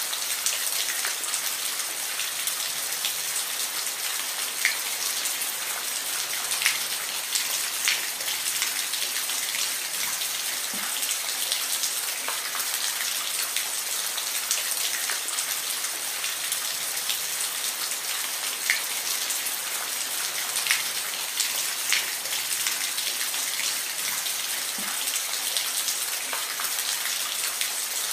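Steady rain falling, an even hiss with individual drops ticking now and then.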